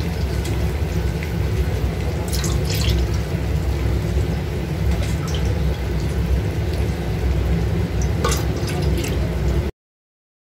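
Pot of water heating on a stove: a steady low noise with a few small ticks and pops as bubbles begin to form on the bottom. The sound cuts off abruptly near the end.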